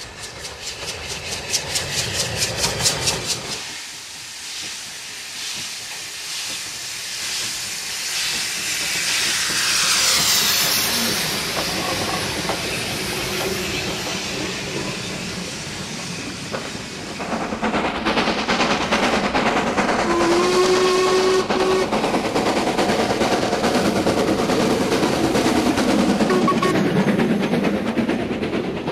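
War Department Austerity 2-10-0 steam locomotive working hard, its exhaust beating rapidly in the first few seconds. Steam hisses as it passes close, and a whistle sounds for about a second and a half some twenty seconds in. Then come a steady rush of steam and the rumble of the train on the rails.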